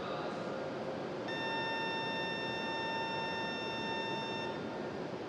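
A steady electronic warning beep, one unbroken tone held for about three seconds, starting about a second in, beside a standing Shinkansen train. Under it runs a steady hiss of platform noise.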